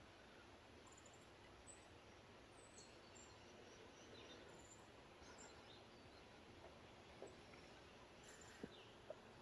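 Near silence: faint outdoor ambience with a few faint, high bird chirps and a couple of soft clicks near the end.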